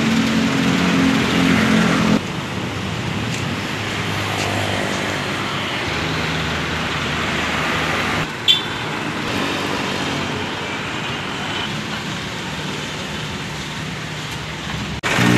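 Steady street traffic noise with vehicle engines running. The sound changes abruptly about two and eight seconds in, and there is a short sharp sound just after the second change.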